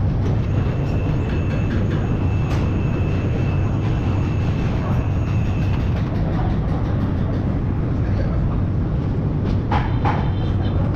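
Steady low rumble and hum of running workshop machinery, with a faint high whine through the first half and a few small clicks near the end.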